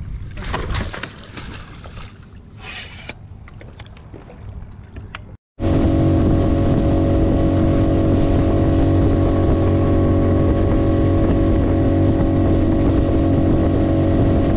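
Boat's outboard motor running steadily at speed, its even hum starting abruptly about five and a half seconds in. Before it, uneven wind noise on the microphone with scattered knocks.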